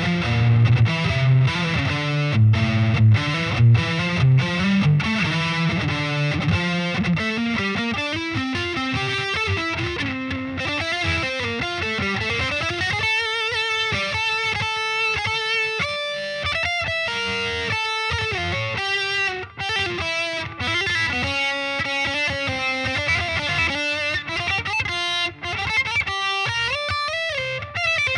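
Distorted electric guitar, a Solar A1.7D LTD played through a Peavey VYPYR 60 W combo amp. It plays a low, chugging rhythm riff for about the first seven seconds, then slides up into held single lead notes with wavering vibrato.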